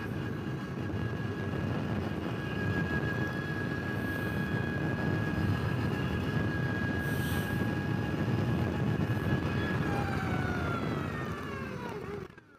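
Energica electric motorcycle riding at speed: a steady high whine from the electric drivetrain over wind and road noise. The whine falls in pitch as the bike slows, and the noise drops away suddenly just before the end.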